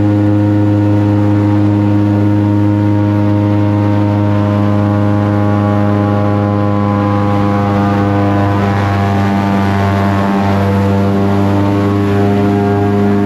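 Airboat's engine and large air propeller running at a steady speed, a loud, even drone.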